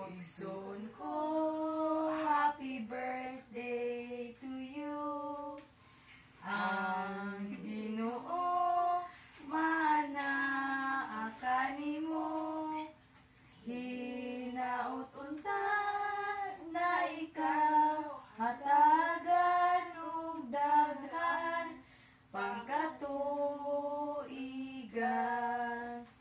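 Women and a girl singing a Cebuano serenade song together, unaccompanied, in sung phrases of a few seconds with short breaths between them.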